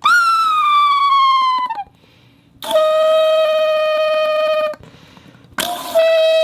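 Improvised whistle-like sound effect: three long, buzzy, reedy tones. The first starts high and slides down for nearly two seconds; the next two hold a steady lower pitch for about two seconds each, with short pauses between.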